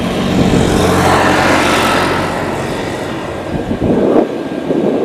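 CFM56-powered Airbus A320-214 jet on final approach: a broad rushing engine noise with a low hum under it, swelling over the first couple of seconds and easing off by about three seconds in. Near the end, wind gusts buffet the microphone.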